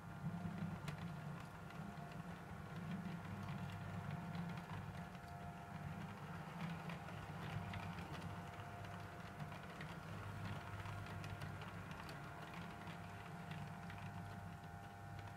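Model railway train running on the layout: the model locomotive's motor and gears give a steady low hum with a faint whine, while the wheels of the hopper wagons click over the track joints.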